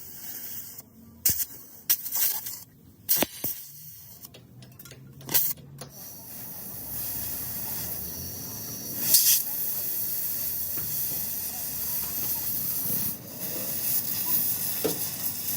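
A few sharp knocks and clicks, then, about six seconds in, a steady hiss of spraying air that runs on, with a brief louder burst partway through.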